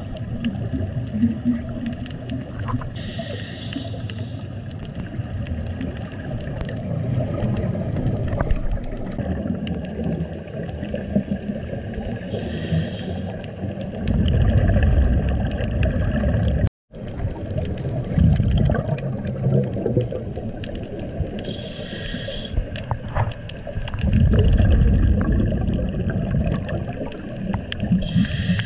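Underwater scuba breathing heard through a camera housing: short hisses from the diver's regulator come about every nine to ten seconds, and each is followed by a louder, bubbling rumble of exhaled air.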